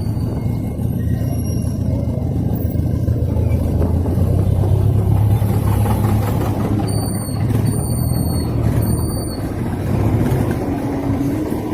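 Road vehicle noise: a steady low engine rumble mixed with road and wind noise, loud throughout.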